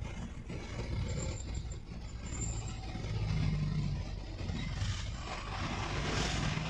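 Steady engine and road noise of a moving vehicle. About five seconds in, an oncoming pickup truck passes close by, swelling briefly into a louder rush of noise.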